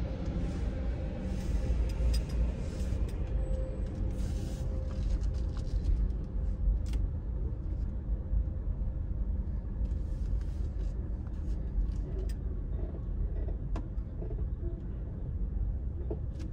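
Low rumble of a car's engine and tyres heard from inside the cabin as the car rolls slowly, with a few faint clicks and ticks scattered through it.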